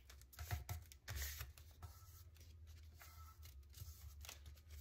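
Faint, irregular rustles and soft scrapes of a thin sheet of pattern paper being pressed and creased flat by hand.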